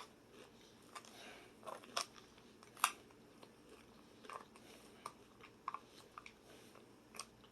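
Close-miked chewing and biting of crunchy food, with irregular crisp crunches.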